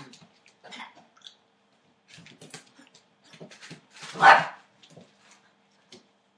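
Eight-week-old Entlebucher Mountain Dog puppies play-fighting: short, quiet scuffling sounds and one loud puppy bark about four seconds in.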